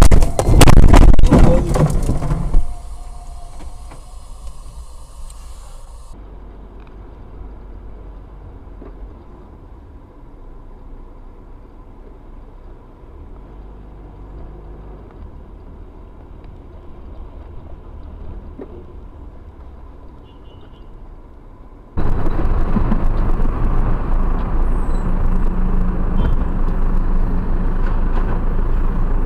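Road and engine noise from inside moving cars. It opens with a loud burst of knocks and clatter lasting about two seconds, then settles to a quieter steady rumble, and turns much louder near the end.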